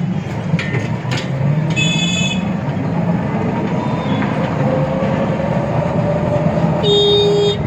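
Steady engine and road noise of a moving vehicle, likely an auto-rickshaw, with a shrill horn honking briefly about two seconds in and again near the end.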